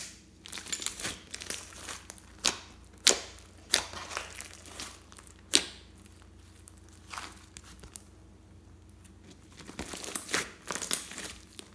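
Thick glossy slime with small beads mixed in, stretched, pressed and squeezed by hand: sticky crackling, with sharp pops every second or so and a cluster of crackles near the end.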